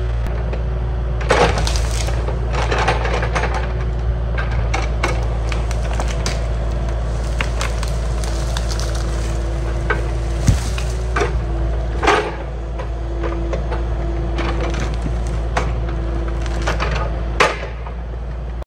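A Kubota mini excavator's diesel engine running steadily while wood cracks, splinters and snaps over and over as trees and brush are pushed down and broken. The loudest snaps come about a second and a half in, around ten and twelve seconds in, and near the end.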